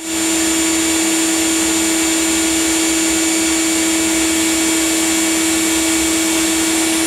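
Steady, loud whirring rush of air with a constant hum, like a motor-driven blower, running while the traction engine's fire is kept going.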